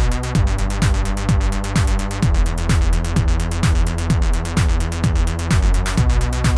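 Electro house music: a steady drum-machine kick, about two beats a second, under sustained synthesizer chords and crisp hi-hat ticks.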